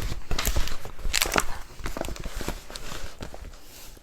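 Rustling and crackling of a large rolled diamond painting canvas being handled and rolled over, with irregular sharp crinkles that are busiest in the first second and a half, then quieter.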